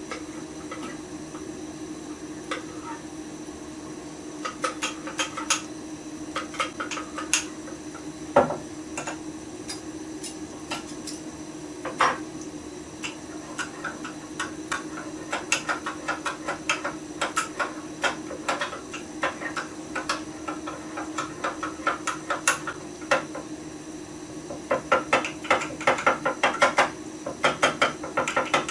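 A metal spoon clinking against a mug while stirring gravy powder into cold water, over the steady hum of a kitchen extractor fan. The clinks come in scattered runs with a couple of louder knocks, and grow quick and rapid near the end.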